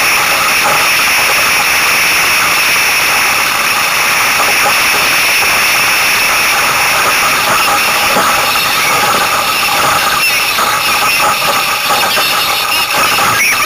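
Steady, loud rushing hiss of water and wind streaming past an F16 catamaran's hull as it sails at speed, with a few brief splashes or knocks in the second half.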